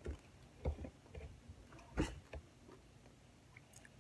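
Close-up chewing of crunchy pizza crust: irregular crunches and mouth clicks, the loudest about two seconds in.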